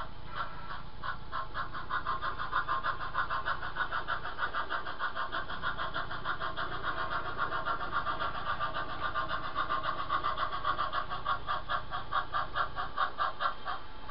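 HO-scale model steam locomotive pulling passenger cars, chuffing in a rapid, even rhythm of several beats a second. The beats spread out slightly near the end as it slows.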